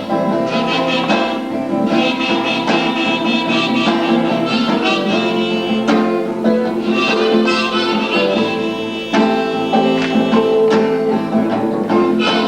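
Instrumental break of a folk song: strummed acoustic guitar under a sustained reed melody, harmonica-like, with no singing.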